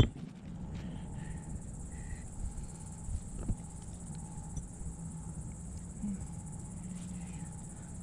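Steady high-pitched drone of insects, with a low steady hum and rumble underneath and a few faint knocks.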